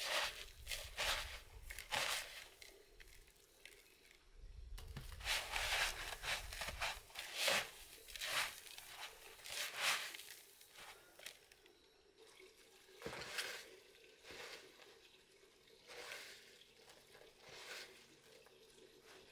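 Hands pressing raw chicken drumsticks into a plastic basin of dry breadcrumb coating: repeated crunching, rustling squishes of the crumbs, one about every second, busiest in the middle and sparser near the end.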